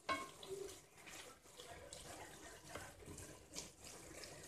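Oyster mushrooms sizzling faintly in a frying pan as a wooden spatula stirs them, with a sharp knock right at the start and a few softer clicks.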